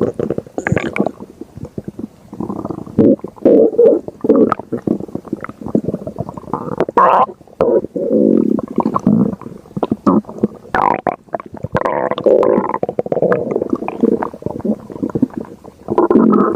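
A stomach growling in a long, irregular run of loud gurgles and rumbles, with short clicks and pops between them.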